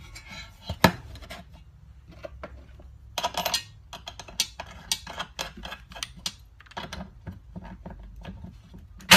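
Small metal parts and hand tools clinking and rattling in irregular clicks, with a sharper click about a second in and a busier cluster a little after three seconds: lawnmower blade hardware being handled.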